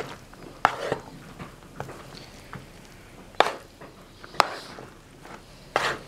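Pasta salad being tossed by hand in a large bowl, with several sharp knocks a second or so apart and short bursts of rustling as the pasta and chopped ingredients are turned over.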